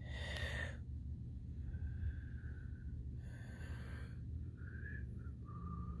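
A person breathing through the nose close to the microphone, with two hissy breaths (at the start and about three seconds in) and faint short whistling tones on other breaths, over a low steady hum.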